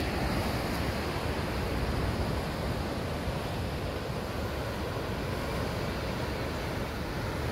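Ocean surf washing and breaking over sandstone rock ledges in a steady, even wash, with wind rumbling on the phone's microphone.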